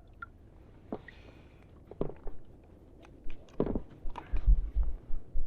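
Scattered knocks, clicks and low bumps of handling in a small inflatable fishing boat, sparse at first and busier in the second half.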